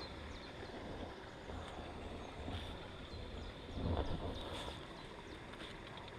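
Quiet outdoor ambience: a low wind rumble on the microphone, with a brief soft swell of noise about four seconds in.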